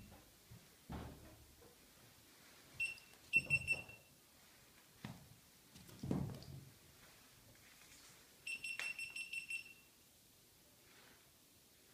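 Mouse squeaking: high, shrill squeaks in short bursts, a few about three seconds in and a quick run of about seven near the end, with dull thumps between them.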